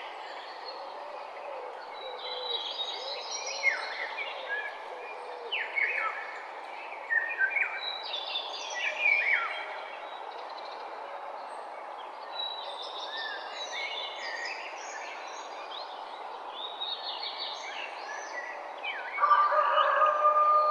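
Several songbirds chirping and whistling in short bursts over a steady background hiss of morning ambience. Near the end, a louder held tone comes in and dominates.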